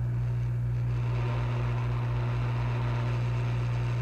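Steady low electrical hum with an even hiss of blowing air, from running microsoldering bench equipment, unchanging throughout.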